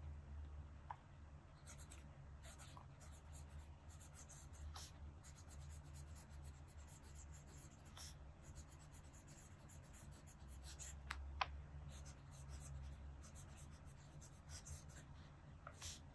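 Fountain pen with a double-broad nib writing cursive on dot-grid paper: faint, soft scratching of the nib in short strokes, with one sharp tick about eleven seconds in.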